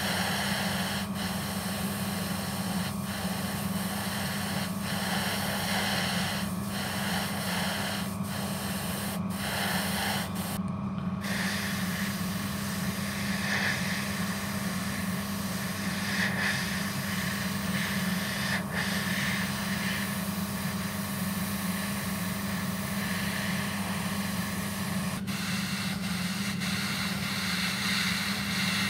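Airbrush spraying white base coat, a steady hiss of air and paint over a constant low hum. For the first eleven seconds or so the hiss breaks off briefly about once a second.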